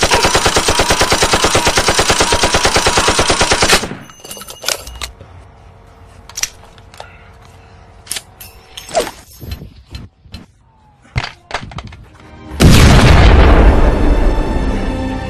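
Rapid automatic gunfire, a long machine-gun burst of sharp, evenly spaced shots lasting about four seconds, then scattered faint clicks. Near the end a loud burst that fades into music.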